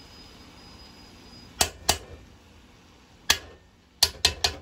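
Perforated metal skimmer spoon knocking against an aluminium cooking pot as rice is spread and levelled. There are two sharp clinks about a second and a half in, one more about three seconds in, and three quick ones near the end.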